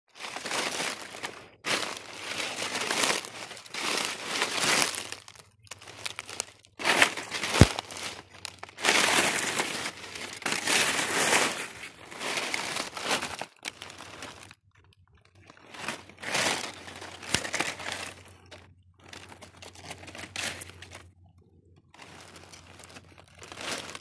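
Dry fallen leaves rustling and crunching in irregular bursts, with short pauses, one about halfway through and one near the end.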